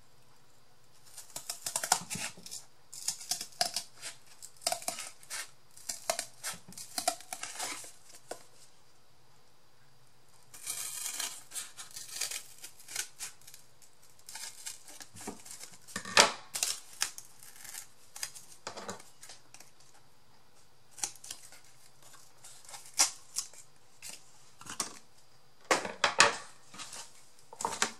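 Cardboard being cut by hand: runs of short, crisp snips in several spurts, with short pauses between them.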